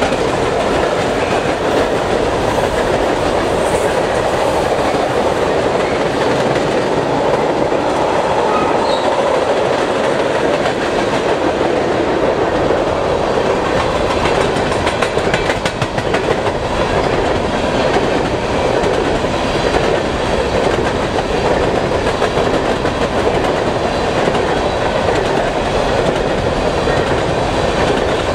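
Freight cars (tank cars and open-top hopper cars) rolling steadily past: a continuous rumble of steel wheels on rail with clickety-clack over the rail joints, and a few sharper clanks about halfway through.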